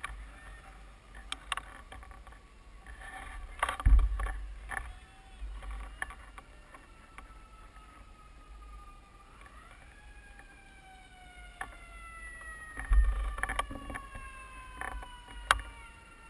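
Mountain bike rolling over rough ground, with rattles, clicks and knocks and gusts of wind on the microphone, the biggest jolts about four and thirteen seconds in. From about ten seconds in, a distant siren wail rises and then slowly falls.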